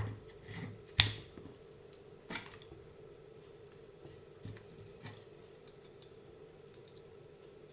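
A few sharp clicks and taps of grips working a bent metal suspension bolt held in a hole in a wooden block while it is straightened, the loudest about a second in, over a faint steady hum.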